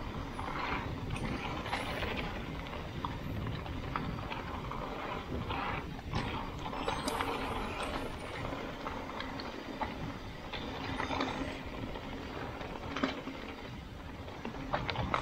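Mountain bike riding down a rocky trail: continuous rolling noise with irregular rattling, knocks and clatters from the bike over the rough ground, over a low rumble.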